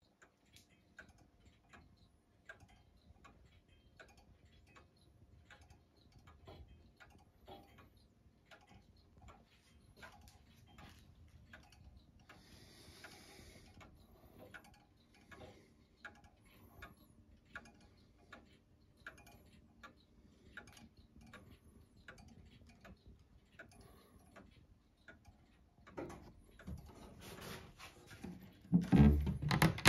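Henry-Lepaute small turret-clock movement with a Brocot escapement ticking steadily, a faint, regular clock tick. Near the end, a few louder knocks and bumps briefly cover it.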